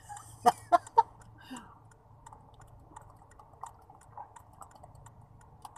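Three sharp clicks in quick succession about half a second in, then faint sips and swallows as a man drinks from a bottle, over a low steady hum inside a car cabin.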